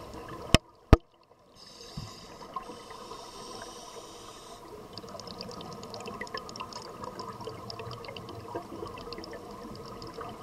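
Scuba regulator breathing heard underwater: a high hiss for about three seconds, then a run of crackling, bubbling ticks as exhaled air bubbles away. Less than a second in there are two sharp, loud clicks.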